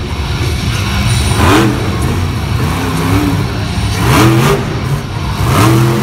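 Max-D monster truck's supercharged V8 running loud, revving up and down about three times as it holds a wheelie.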